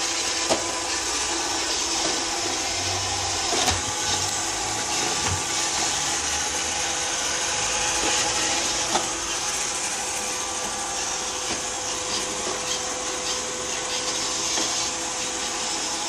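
iRobot Roomba robot vacuum running steadily: an even whir of its suction motor and brushes with a faint hum, broken by a few sharp clicks.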